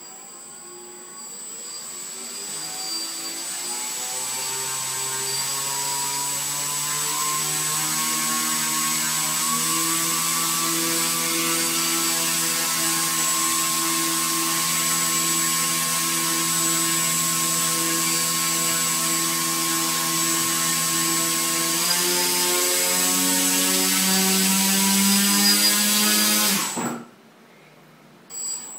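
A single brushless quadcopter motor with its propeller, driven by its ESC at about half throttle. It spins up over the first few seconds to a steady whine, climbs in pitch about 22 seconds in, then cuts off suddenly near the end. A steady high-pitched whine runs alongside it.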